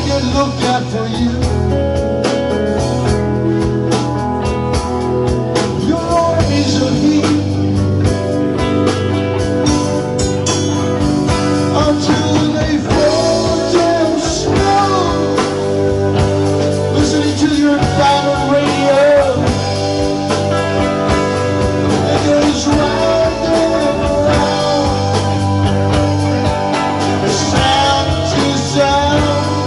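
A live rock band playing: electric guitar, bass guitar, a Nord Electro keyboard and a Tama drum kit, with a steady full low end and a gliding lead line over it.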